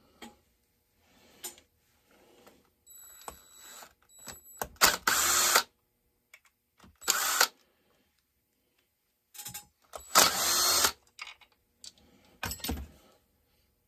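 Cordless drill-driver running in short bursts against a chainsaw's body, with about four runs, the two longest lasting about a second each. Quieter clicks fall between the runs.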